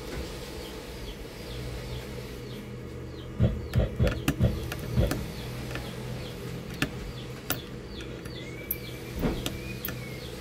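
Small screwdriver turning a screw in a laptop motherboard, giving dull knocks and clicks in a cluster about three and a half to five seconds in and again near nine seconds. A steady low hum and small birds chirping over and over run underneath.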